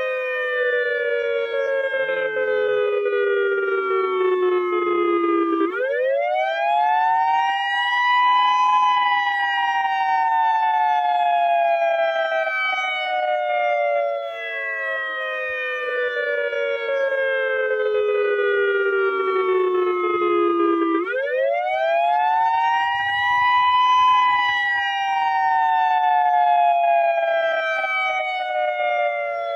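Federal Signal EOWS-1212 electronic outdoor warning siren sounding the Attack signal: a loud wail that rises quickly over about three seconds and then falls slowly for about twelve, the cycle heard twice.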